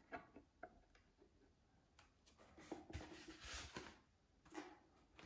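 Faint handling noises from a foam RC model airplane's fuselage being handled: a few light clicks, then a longer rustle with a soft bump about three seconds in.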